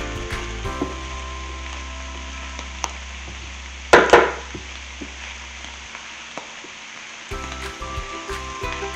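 Diced tofu and vegetables sizzling as they fry in a pan, stirred with a silicone spatula. About four seconds in come two sharp knocks, the spatula tapped against the pan.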